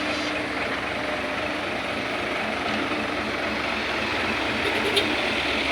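Heavy dump truck's diesel engine running steadily.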